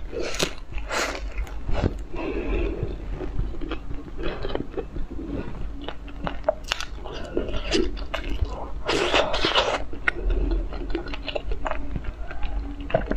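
Close-miked chewing and biting into food: irregular wet crunching and mouth clicks, with a louder burst of crunching about nine seconds in.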